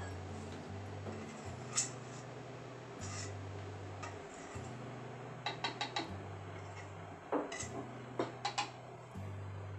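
Kitchen utensils clinking and knocking: a wire whisk and metal mixing bowl tap against a plastic measuring jug as batter is poured and scraped off. There are scattered single clinks, then a quick run of them around the middle and a few more near the end.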